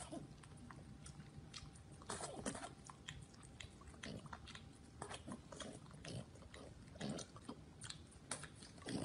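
A dog licking and biting at a frozen ice pop: faint, irregular wet smacks and crunchy clicks.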